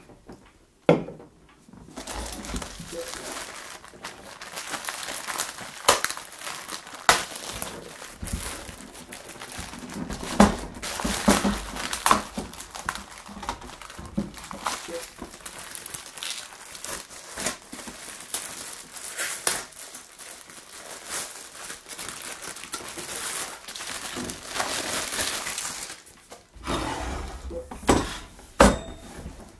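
Clear plastic packaging bag crinkling and rustling as a folded wire grill stand is drawn out of it and unwrapped from a foam sheet, with a few sharp knocks along the way.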